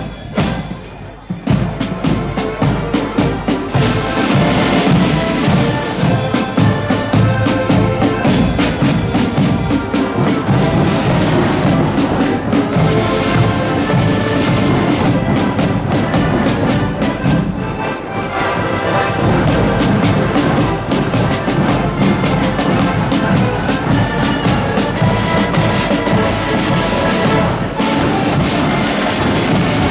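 Marching accordion band playing a march tune: accordions carrying the melody over side drums and a bass drum keeping march time. The full band comes in about two seconds in.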